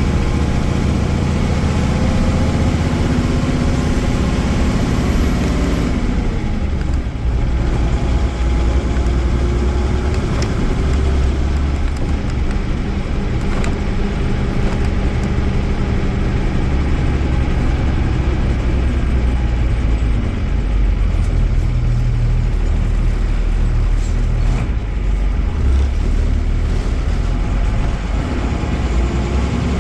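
Mercedes-Benz OM-366A six-cylinder turbodiesel in a coach pulling with rising revs, then easing off suddenly about six seconds in, as at a gear change or lifting off. It runs lower and steadier after that and picks up again near the end.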